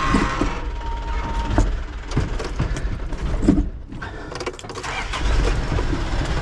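Hino rollback tow truck's diesel engine running, heard from inside the cab, with a few knocks and clicks in the cab. The sound drops briefly about four seconds in, then picks up again.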